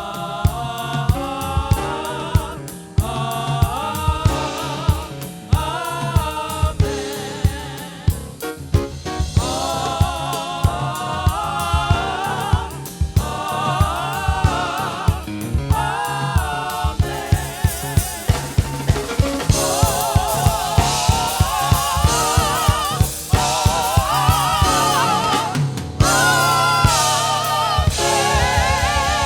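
Gospel song with voices singing with vibrato over a drum kit keeping a steady beat.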